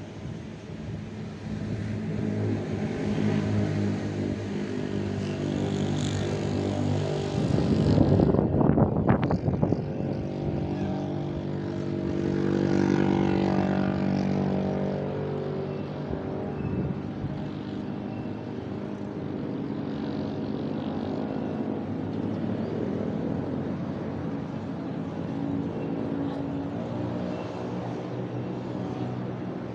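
Motor vehicles driving past on a road, their engines humming steadily. One passes close and loud about eight seconds in, and another swells past a few seconds later.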